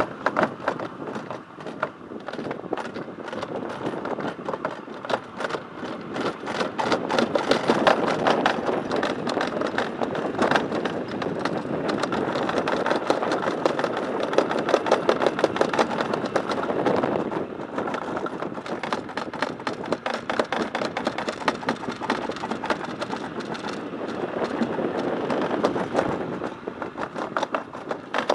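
Summer toboggan sled running down a stainless steel trough, a continuous rattling rumble with fast clatter throughout.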